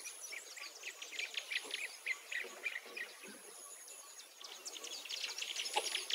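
Outdoor bird chorus: many short, quick chirps from several birds overlapping, over a soft ambient hiss and a thin, steady high tone that comes and goes.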